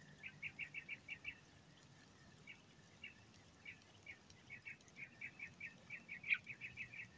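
A bird calling faintly in quick runs of short chirps, about six a second: one run just after the start, scattered notes in the middle, and a longer, denser run in the last few seconds.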